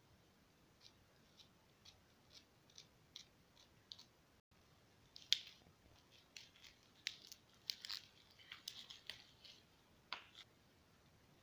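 Scissors snipping through plastic shrink-wrap on a chocolate gift box: a run of small, evenly spaced snips, about two a second. Then the plastic wrap crackles and crinkles as it is pulled off by hand, loudest about five seconds in. All of it is faint.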